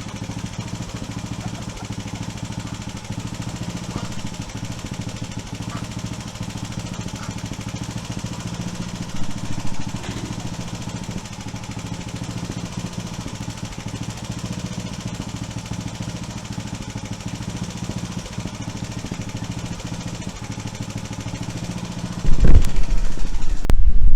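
An engine running steadily at an even speed. About 22 seconds in, a much louder low rumble cuts in suddenly.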